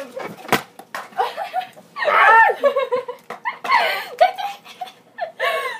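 Young people laughing and giggling in bursts, loudest about two seconds in, with a single sharp knock about half a second in.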